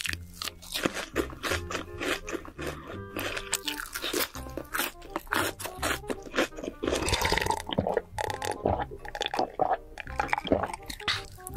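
Close-miked crunching and chewing of a deep-fried ball, with many sharp crackly crunches, over background music.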